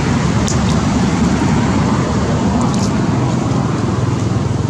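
Steady low hum of a motor vehicle engine running close by, with a few faint clicks over it. The hum grows steadier near the end.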